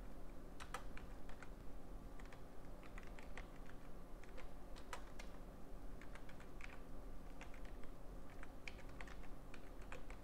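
Typing on a computer keyboard: irregular keystrokes, clustered in quick runs with short pauses, over a faint steady low hum.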